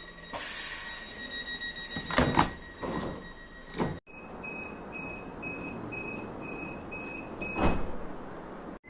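UK train passenger doors closing: a steady high warning tone with the doors knocking shut, then, in a second clip, a run of short, evenly spaced door-closing beeps, about three a second, ending in one loud thud as the doors shut.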